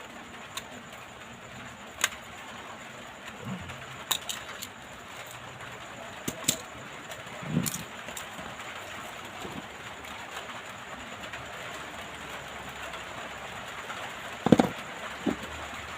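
Scattered light clicks and taps of small tools and phone parts being handled on a workbench, over a steady hiss. The loudest is a sharp knock near the end, with a smaller one just after.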